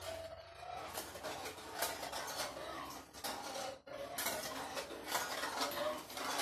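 Manual wheelchair being rolled along, its metal frame clinking and rattling, with a brief pause about four seconds in.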